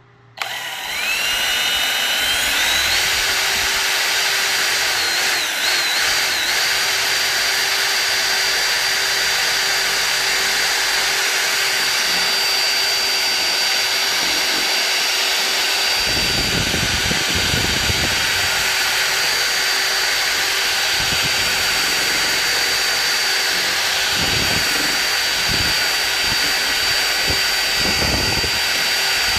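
Electric drill with a mixing paddle stirring pigmented epoxy resin. It starts about half a second in, its whine rising over the first few seconds as the motor spins up, then runs steadily at high speed, with occasional low knocks from about halfway through.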